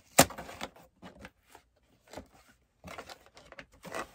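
Cardboard USPS Priority Mail box being torn open by hand: one sharp rip just after the start, then intermittent rustling and scraping of cardboard and packaging.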